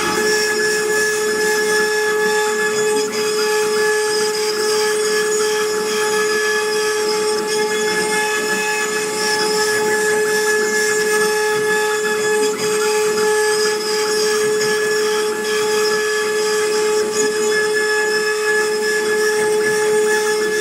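CNC wood-carving router's spindle running, a steady high-pitched whine over a constant hiss.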